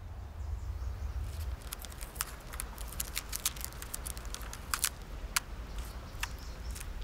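Clear tape being pulled and torn off a roll in a run of short, irregular crackling clicks, over a steady low outdoor rumble.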